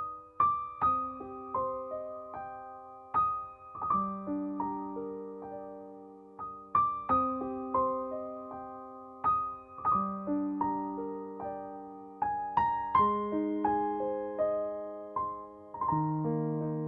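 Gentle solo piano music: single notes and chords struck one after another, each fading away.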